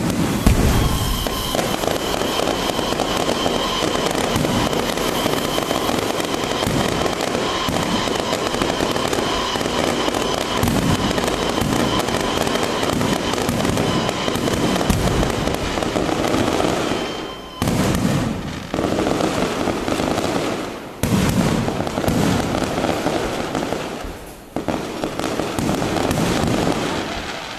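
Fireworks and firecrackers going off in a dense, continuous barrage of crackling bangs, with a few short breaks in the last third. A steady high tone runs beneath the crackle until about two-thirds of the way through.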